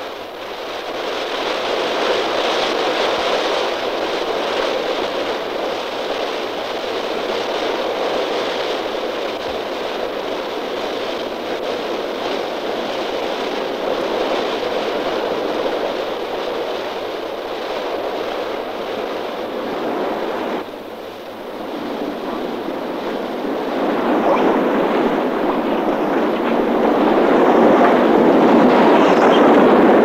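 Broken ice and water grinding and rushing along the steel hull of a nuclear icebreaker forcing its way through Arctic pack ice. The rushing noise is steady, breaks off briefly about two-thirds of the way through, then swells to its loudest near the end.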